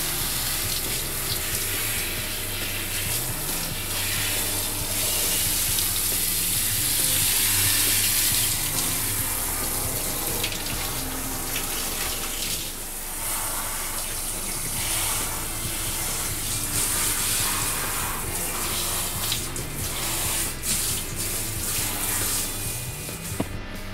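Handheld shower head spraying a steady stream of water onto a wet dog's coat in a bathtub, a continuous hiss and splash, with quiet background music underneath.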